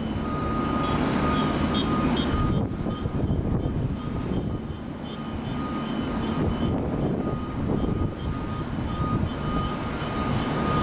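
Boeing 777 jet airliner taxiing, its engines at low thrust: a steady rumble with a thin high whine that fades for a few seconds mid-way and then returns.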